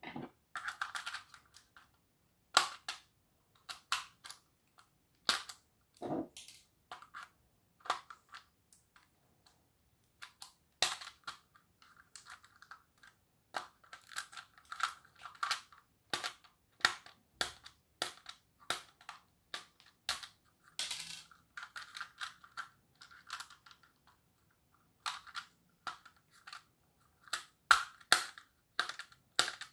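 Diagonal cutters prying and cracking the plastic housing of a modular fuse-holder disconnector: a string of sharp, irregular snaps and clicks, with short scraping sounds between them.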